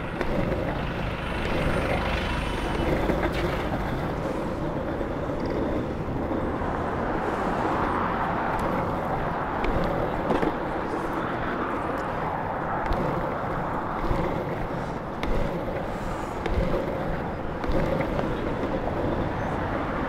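Longboard wheels rolling steadily over asphalt, a continuous rumbling roar with scattered light ticks and knocks, mixed with the noise of street traffic around it.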